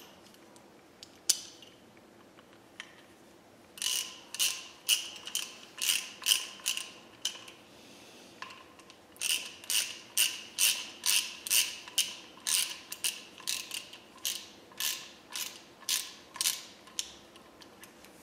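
Hand ratchet tightening the bolts that join a brake caliper to its mounting bracket: short strokes of ratcheting clicks, about two a second, starting a few seconds in, pausing briefly near the middle, then running on until near the end.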